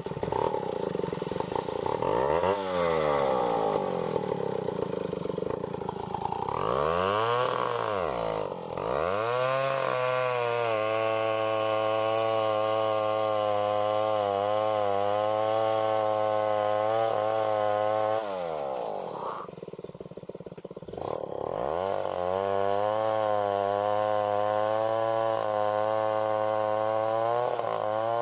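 Stihl 070 two-stroke chainsaw revving up and down a few times, then held at high revs cutting into a duhat trunk. A little past the middle it drops back to low revs for a couple of seconds, then revs up and cuts steadily again.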